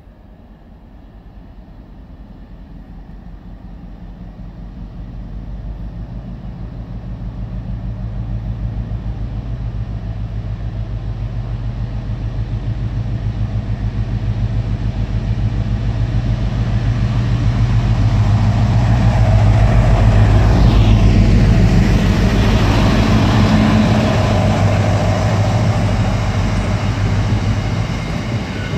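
A Class 60 diesel-electric freight locomotive approaches and passes, its Mirrlees eight-cylinder diesel engine running with a steady low tone that grows louder for about twenty seconds. Near the end it gives way to the running noise and wheel clatter of a long train of loaded box wagons.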